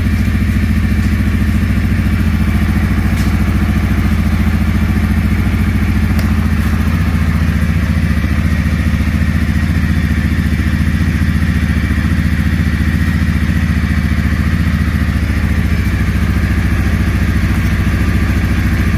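2019 CFMOTO 500S ATV's single-cylinder engine idling steadily, run after a coolant refill to work the air bubbles out of the cooling system.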